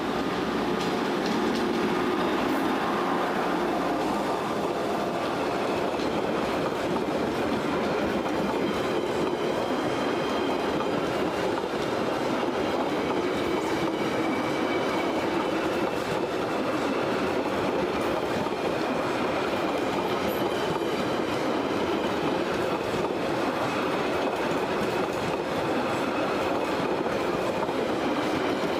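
Train passing close by: a steady, loud rumble of wheels on rail with clicks of the wheels running over rail joints.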